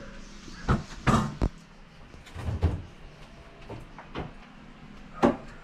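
Light handling knocks and clicks from fishing rods and spinning reels being touched and shifted in a wooden wall rack. There are about six irregular knocks, one of the sharpest near the end.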